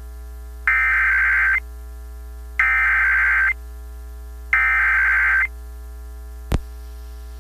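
Emergency Alert System SAME header: three bursts of digital data tones, each just under a second long and about a second apart, marking the start of a relayed tornado warning. A single short click comes near the end, over a steady low hum.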